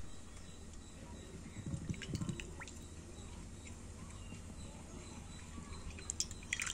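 Coconut oil poured in a thin stream from a glass bottle into an iron kadai: a faint trickle, with a few small crackly ticks near the end.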